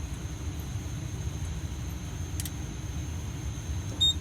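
Fire alarm control panel resetting: a steady low rumble with a faint high whine and a faint click about two and a half seconds in, then one short, loud, high beep from the panel's piezo sounder near the end.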